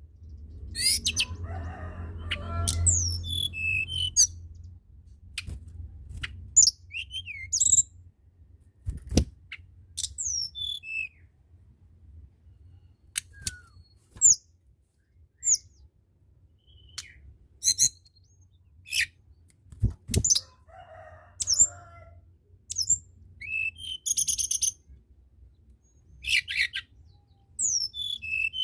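Tledekan gunung songbird singing: a string of short, high whistled notes that fall in pitch, coming about once a second, with a buzzy rattle near the end. A low rumble runs under the first few seconds, and two dull thumps fall about a third and two-thirds of the way through.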